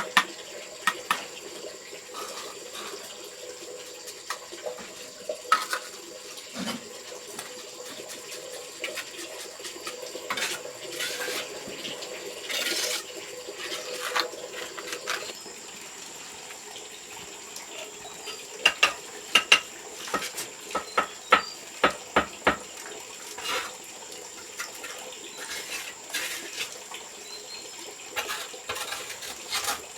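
Running water with scattered sharp clinks and knocks of hard objects, a quick run of clinks a little past the middle.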